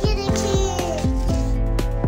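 Background music with a steady beat of about four hits a second over deep bass notes.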